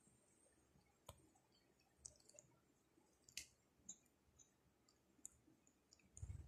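Near silence, with faint scattered clicks and taps of cats' claws and paws on a wood-effect floor as two cats play-fight, and a soft low thump near the end.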